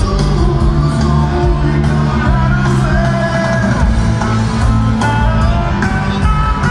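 Loud amplified rock music with a singer, carried by heavy held bass notes, played live by a band on an outdoor stage.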